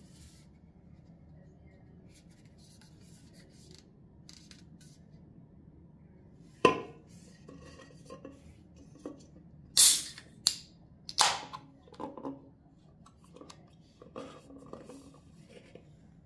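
A Tyskie 0.0 alcohol-free beer being handled and opened, with light clicks and knocks of glass or metal. There is one sharp knock about six and a half seconds in, then a few short, loud, noisy bursts around ten to eleven seconds.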